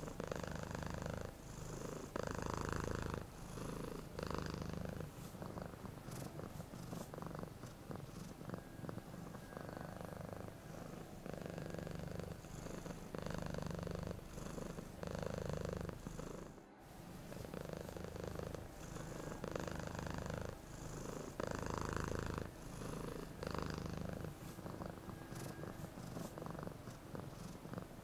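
Domestic cat purring close up, the low purr swelling and easing in a steady rhythm with its in and out breaths.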